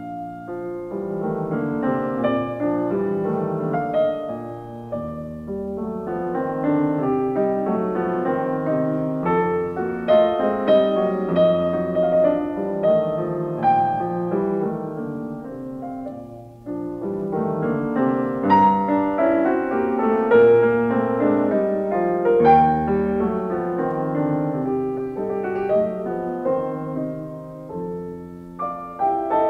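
Background piano music: a gentle run of many notes, easing off briefly about halfway through.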